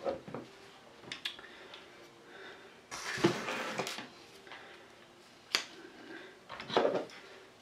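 Workbench handling noises: the plastic RC gearbox half with its motor is set down on a wooden table, with scattered light clicks and knocks of small plastic and metal parts and a longer rustle about three seconds in.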